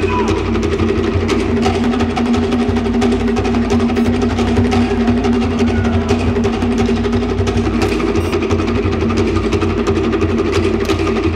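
Cook Islands drum ensemble playing a fast, dense, steady rhythm for an ura pa'u drum dance.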